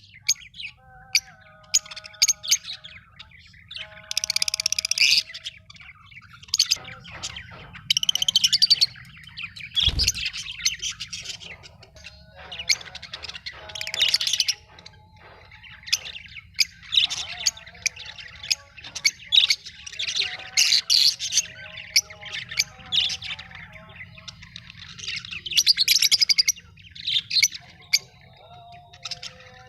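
Lovebirds chirping and squawking in repeated shrill bouts of a second or so, with short pauses between. A single sharp thump about ten seconds in.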